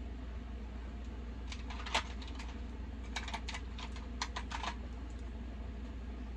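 Makeup products being handled: a quick, uneven run of about a dozen light clicks and taps, from about a second and a half in to nearly five seconds in, over a steady low hum.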